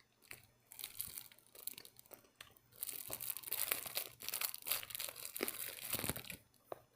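Wrapping around a candy-coated strawberry (morango do amor) crinkling and tearing in irregular bursts as it is handled and opened.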